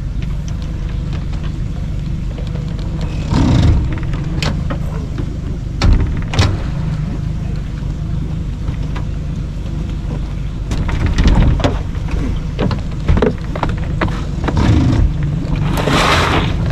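Boat motor running with a steady low rumble, with scattered knocks and clicks of gear in the boat and a short rush of noise near the end.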